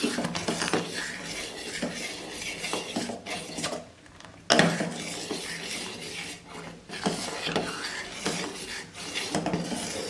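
A spoon stirring rice-and-milk payasa in a pot, scraping and clinking against the pot's bottom and sides, with a sharp knock about four and a half seconds in. The stirring is kept up so that the payasa does not stick to the bottom of the pot.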